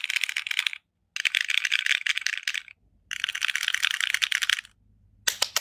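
Melody 65 mechanical keyboard with stock JWK Black linear switches on a polycarbonate plate with Cherry-profile keycaps, typed on fast in three quick bursts of keystrokes with short pauses between, then a few single key presses near the end.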